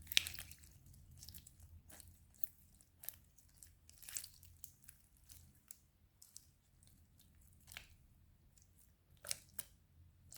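Slime being pressed and stretched by hand, giving off scattered small crackles and sticky pops at irregular intervals, a few louder than the rest.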